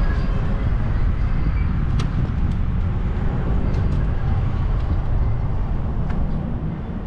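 Steady low rumble of wind and road noise from riding a bicycle, with a sharp click about two seconds in; the rumble eases a little near the end.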